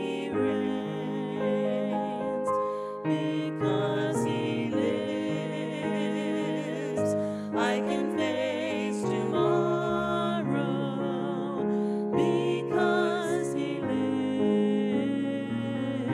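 Women's voices singing a hymn with vibrato, accompanied by sustained chords on an electric keyboard.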